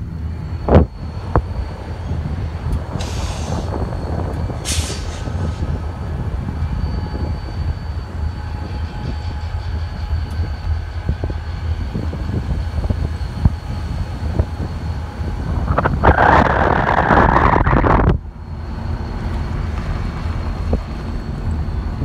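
Road and wind noise from a moving car: a steady low rumble with buffeting. There is a sharp thump about a second in, and near the end a louder rushing hiss lasts about two seconds and then cuts off suddenly.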